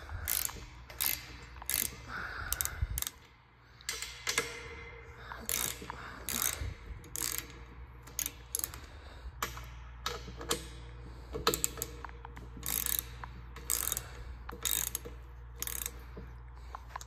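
Ratcheting wrench clicking in short, irregular runs as the bolts holding a 30-inch high-velocity fan's rear guard are loosened.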